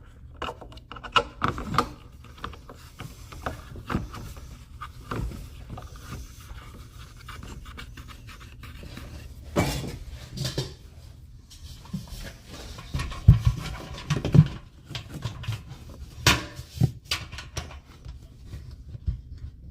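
Irregular knocks, clunks and scraping as the cleaned filter and housing of a Hoover central vacuum unit are lined up and fitted back together, with the sharpest knocks about two-thirds of the way in.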